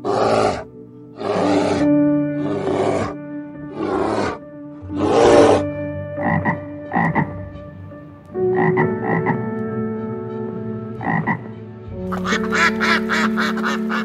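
A series of short animal calls, about one a second, then a few sharper, shorter calls, over soft background music.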